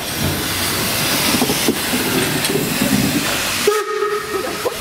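Steam locomotive passing close by, a loud, even rumble and hiss with faint knocks. About four seconds in the sound cuts off abruptly to a steam whistle holding one steady note for about a second.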